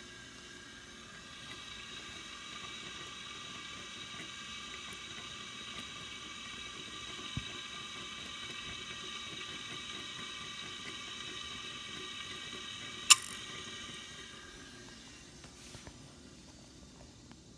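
Profitec Pro 500 espresso machine boiler giving off a steady high hiss with a whistling edge, which fades out after a single sharp click near the end.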